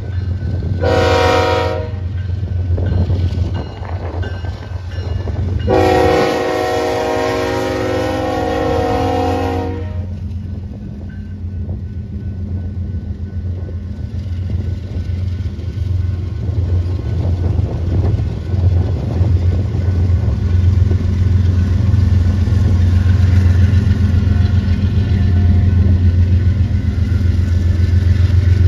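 BNSF freight train's GE diesel locomotives passing close by and sounding the air horn: a short blast about a second in, then a long blast from about six to ten seconds. Under and after the horn, the locomotives' diesel engines drone steadily as the train rolls past, with covered hopper cars going by near the end.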